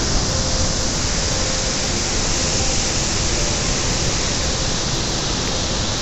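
Tall waterfall in monsoon flood: a heavy volume of muddy water pouring over the brink and plunging into the gorge, a loud, steady rush with a deep rumble underneath.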